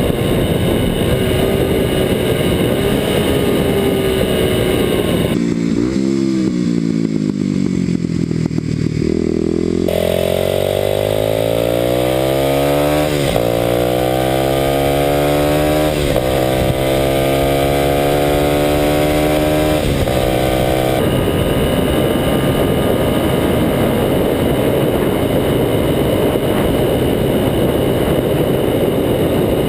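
Kawasaki KLX250SF's single-cylinder four-stroke engine through a Muzzy exhaust, riding at speed with heavy wind on the microphone. About five seconds in, the wind drops away and the engine is heard clearly: it falls in pitch as the bike slows, then climbs through several upshifts, each a rising pitch broken by a short dip. About two-thirds of the way in, the wind-covered sound returns.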